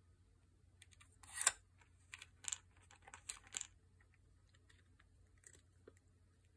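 Hard plastic pieces of a cat's treat puzzle board clicking and clattering as a cat works its sliders and flip lids: a quick run of clicks starting about a second in, loudest at the start, then two faint ticks near the end.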